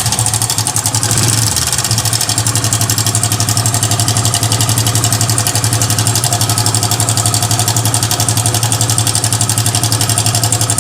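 Hero Passion XPro i3s single-cylinder engine idling with a fast, even rattle from the timing chain. The chain is loose, the cause of the engine noise.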